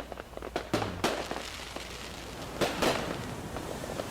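Fireworks going off: a run of sharp bangs and crackles in the first second, then a quieter stretch, then another pair of bangs about two and a half seconds in.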